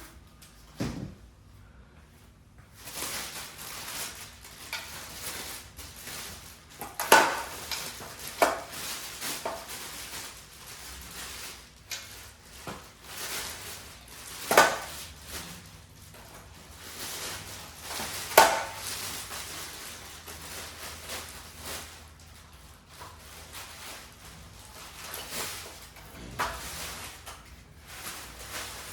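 Rustling of packaging and handling noise with several sharp knocks and clunks, as a heavy RC hydraulic bulldozer is worked out of its box.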